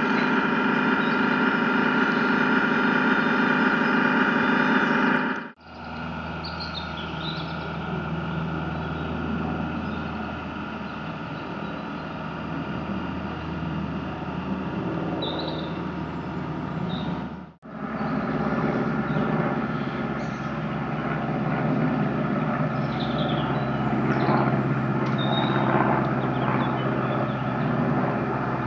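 Steady motor hum of a radio-controlled model work boat pushing a barge, made of several held tones. The tone changes abruptly twice.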